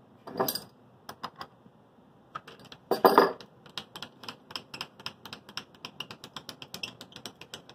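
Light mechanical clicking from a benchtop milling machine: two louder knocks near the start, then a steady run of light clicks about five a second. The spindle is not running.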